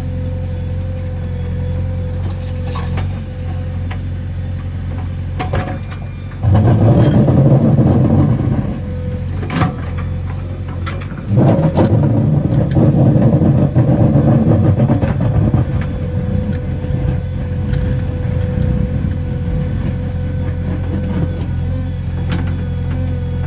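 JCB 3DX backhoe loader's diesel engine running steadily, with a steady whine over it. It gets louder and rougher for two spells, about six seconds in and again about eleven seconds in.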